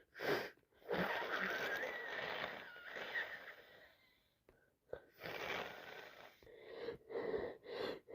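Congested breathing and sneezing from a person with flu: a long, noisy breath with a wavering whistle running through it, then a quick run of short sneeze bursts near the end.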